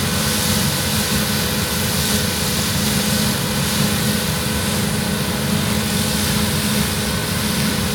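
Heavy farm machinery running steadily: a low engine drone with faint steady whines above it. It fades in at the start and fades out near the end.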